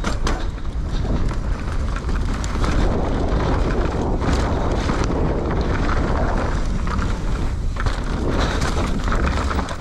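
Wind rushing over a helmet camera's microphone while a mountain bike is ridden fast down a trail, with scattered knocks and rattles from the bike over rough ground.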